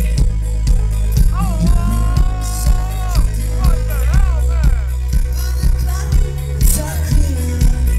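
Live indie-pop band with keyboards, guitar and drums playing loudly, with heavy bass and a steady drum beat. A high singing voice holds one long note about a second in, then runs through quick sliding notes.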